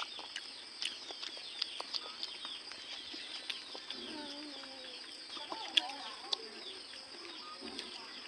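Birds chirping over and over in short, falling high notes, with a lower wavering call about halfway through and scattered sharp clicks.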